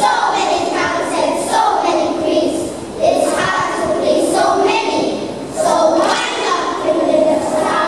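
A large group of young children voicing lines together in unison, in phrases a second or two long with short breaks between them.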